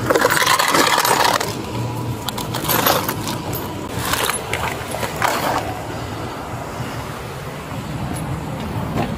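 Rustling and scraping handling noise close to a body-worn camera, in irregular bursts with a few small clicks. The loudest stretch is in the first second and a half, and it quietens after about six seconds.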